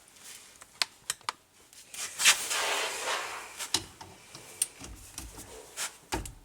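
Hand tools being picked up and handled: scattered sharp clicks and clinks, with a rustling hiss lasting about a second starting about two seconds in.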